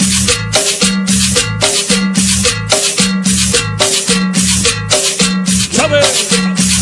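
Cumbia music with a steady percussion rhythm of about four strokes a second over a repeating bass line.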